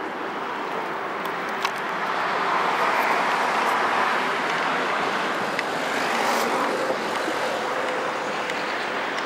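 Road traffic going past: a steady wash of tyre and engine noise that swells as vehicles pass, loudest about three seconds in and again around six seconds.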